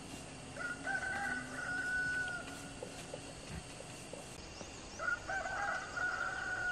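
A rooster crowing twice, each crow a few quick wavering notes running into one long held note, the second crow about four seconds after the first.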